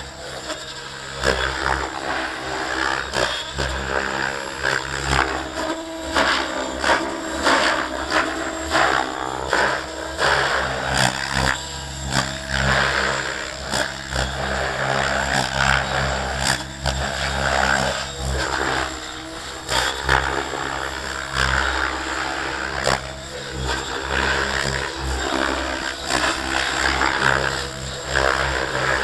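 Align T-Rex 700 radio-controlled helicopter in flight, its rotor and drivetrain sound swelling and fading as it manoeuvres.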